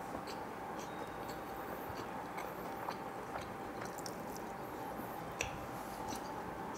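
Close-miked chewing of a mouthful of pizza, with small wet mouth clicks and a fresh bite partway through, over a steady background hiss. One sharper click stands out about five seconds in.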